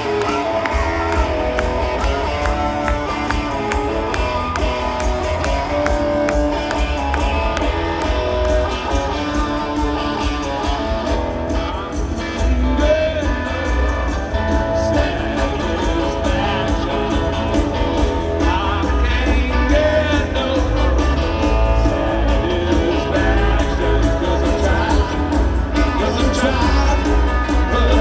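Live rock band playing loud through a stadium PA: electric guitars, bass and drums, with a voice singing over them at times.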